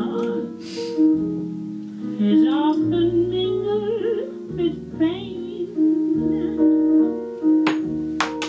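Piano-accompanied song with a woman's singing voice in places, and two short clicks near the end.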